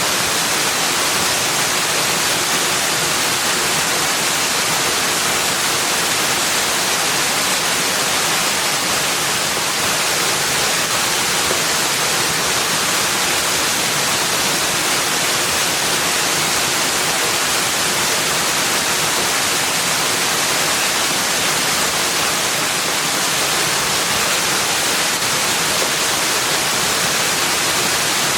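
Steady rushing water, an even hiss that never changes.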